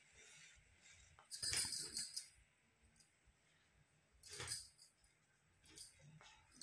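Jingling and clinking in two short bursts, one about a second and a half in and a shorter one around four and a half seconds.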